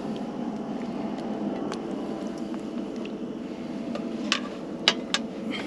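Trangia 27 spirit stove burning steadily under a pot of simmering soup, a low even rushing. Three sharp clicks come near the end.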